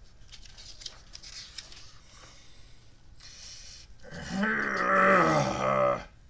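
A man's voice giving a drawn-out growling groan for about two seconds, starting about four seconds in, after a few seconds of faint clicks and rustling.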